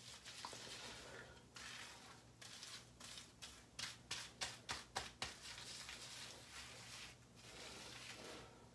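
Faint wet scrubbing and rustling of fingers working shampoo through wet hair at the scalp, with a quick run of about six sharper strokes, roughly four a second, around the middle.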